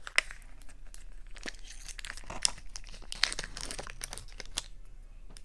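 Sealed lid of a McDonald's ranch dipping-sauce cup being crinkled and peeled back by hand: a close run of crackles and small tearing sounds, with a sharper click about a quarter second in.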